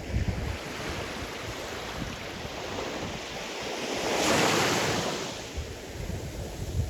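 Sea surf: waves washing in, with one breaker swelling and hissing about four seconds in and then falling away. Wind buffets the microphone with low rumbles.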